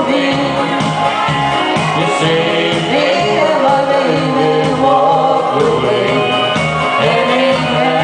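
A man and a woman singing a duet into handheld microphones, amplified through PA speakers, over music with a steady pulsing bass beat.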